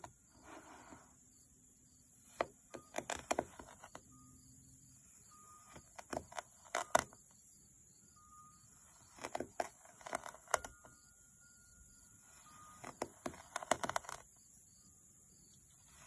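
Knife blade cutting down through a block of kinetic sand, each slice giving a cluster of crackling, crumbly clicks. Four cuts, about three to four seconds apart.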